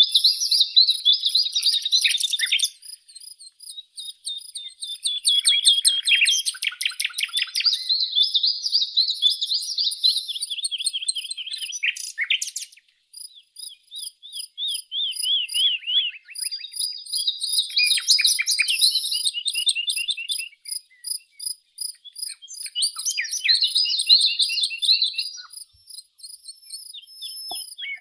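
Songbird singing long, high-pitched phrases of rapid trills and repeated chirps, with short pauses between phrases.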